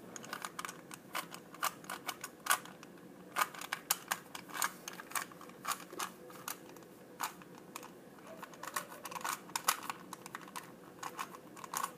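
Rubik's Cube being turned by hand: its plastic layers click and clack irregularly in quick runs of turns, with short pauses between runs.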